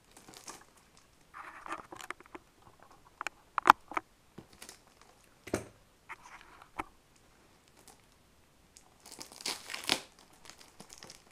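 Cellophane shrink-wrap on a product box crinkling and crackling as it is handled, in scattered bursts with a few sharp clicks, the loudest about four seconds in and a denser run of crackling near the end.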